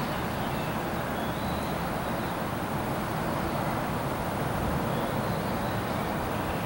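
Steady running noise from a stationary EF64 electric locomotive, with no distinct knocks or horn.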